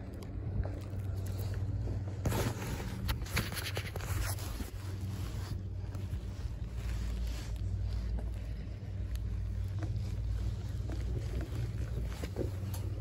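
Ride on a Heron-Poma chairlift: a steady low rumble and hum from the moving lift and wind on the microphone. A stretch of crackling and light clicks comes about two to four and a half seconds in.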